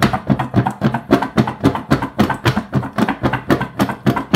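Raw sweet potato fries shaken hard inside a lidded stainless steel mixing bowl, knocking against the metal bowl and lid in a fast, even rhythm of about four to five shakes a second, tossing them to coat in flour, olive oil and spices.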